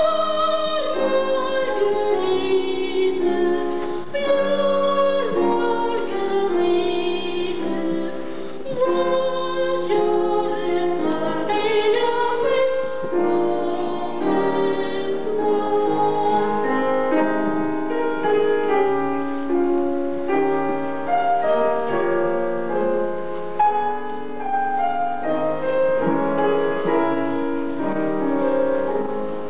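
Operatic singing with piano accompaniment: held, melodic sung notes over a continuous piano part.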